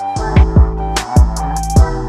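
Background music with a steady drum-machine beat: deep kick drums and crisp hi-hat clicks over held synth tones.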